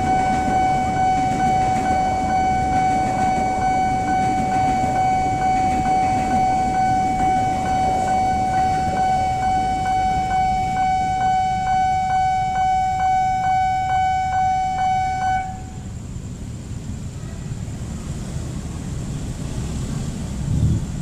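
Railway level-crossing warning bell ringing, a pulsing electronic tone at about two strikes a second, over a steady low rumble of traffic or rail; the bell stops abruptly about 15 seconds in, leaving the rumble and a brief thump near the end.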